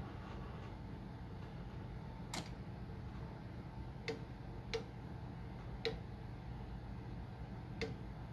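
Five sharp clicks at uneven intervals while the HP 70340A signal generator's output amplitude is being stepped up, over the steady hum of test-equipment cooling fans.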